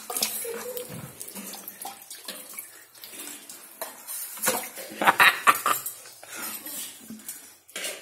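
Water splashing and sloshing in a plastic bucket as a hand moves among live fish in it, in irregular bursts that are loudest about five seconds in.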